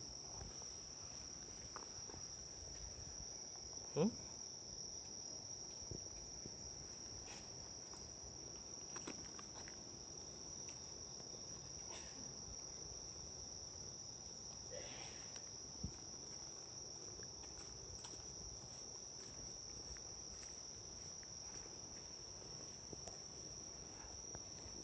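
Night-time insect chorus: a steady, high, unbroken trill. One short, sharp sound stands out about four seconds in.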